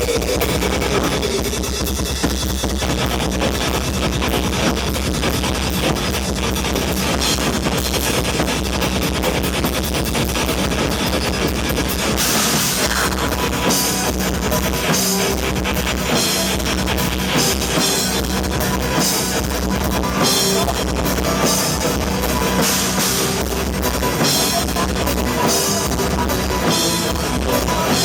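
Black metal band playing live and loud: distorted guitar and bass, keyboards and fast drumming with dense cymbal hits, the drumming and cymbals growing busier about halfway through.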